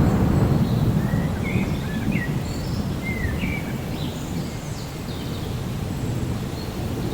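Low rolling thunder over steady rain, loudest at the start and easing off. In the middle a bird calls a run of short chirps and whistles.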